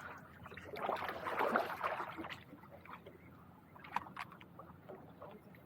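Kayak paddle splashing through the water, a swell of splashing in the first couple of seconds, then fainter scattered drips and light knocks.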